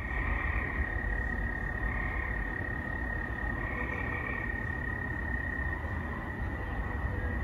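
Field crickets calling steadily at one high pitch, while gray tree frogs give three short trills on and off over them.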